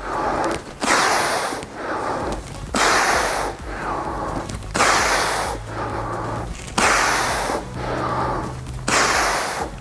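A man breathing hard during a set of dumbbell upright rows. A forceful, hissy exhale comes about every two seconds, with a quieter inhale between them, in step with the reps.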